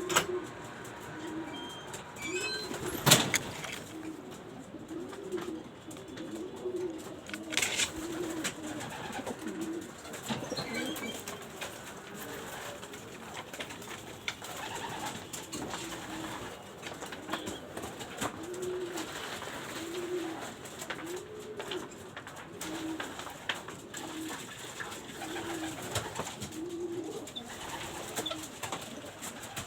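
Pigeons cooing, low rolling coos repeating about once a second, with a few sharp knocks, the loudest about three seconds in.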